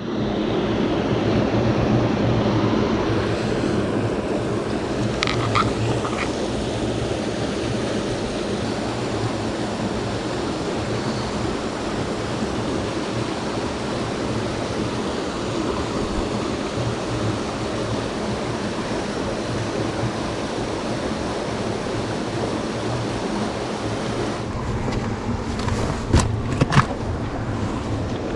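Steady rush of a rocky mountain brook flowing over stones, with a few light knocks near the start and near the end.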